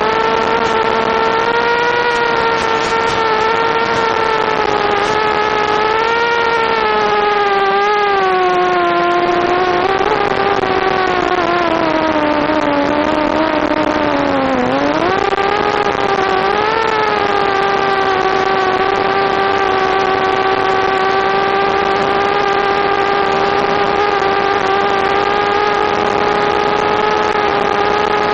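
Mini quadcopter's Suppo brushless motors and propellers whining steadily in flight, the pitch following the throttle: it sags about halfway through, then rises sharply and holds steady again.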